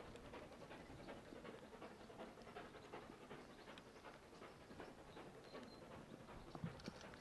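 Stanier 8F 2-8-0 steam locomotive working hard on a climb, heard at a distance: a faint, fast, even run of exhaust beats. There is a single knock near the end.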